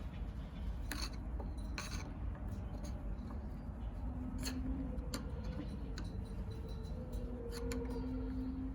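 Flathead screwdriver clicking and tapping against a carburetor slide while prying around its nylon locking ring, a dozen or so sharp separate clicks over a steady low hum.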